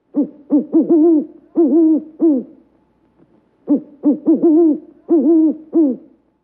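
Owl hooting in two rhythmic phrases of about five or six hoots each, the second phrase starting about three and a half seconds in. Each hoot bends up and then down in pitch.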